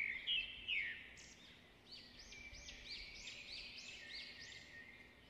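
Faint birdsong: a few chirps in the first second, then a run of quick repeated rising-and-falling notes, about three a second, from about two seconds in.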